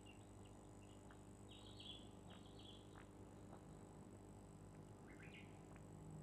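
Near silence: a low, steady room hum with faint, short high chirps now and then and a few soft clicks.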